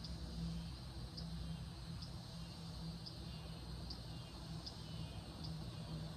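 Outdoor ambience: a short high chirp repeating about once a second over a low, steady rumble and hum.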